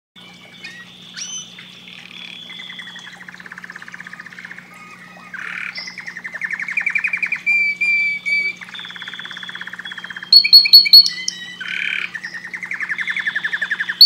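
Domestic canary singing a long, unbroken song of rapid trills and rolls, phrase after phrase, with a burst of loud, sharp high notes a little past the middle.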